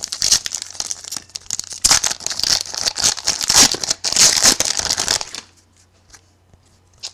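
Plastic-foil trading card pack wrapper being torn open and crinkled in the hands, a dense crackling that stops about five and a half seconds in.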